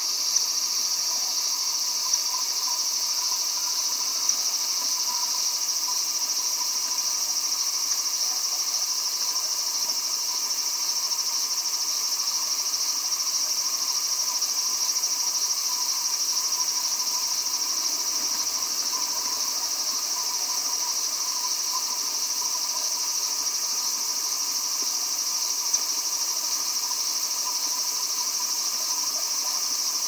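Steady insect chorus: a continuous high-pitched drone that does not break or change, with a fainter wavering tone lower down and a few faint ticks.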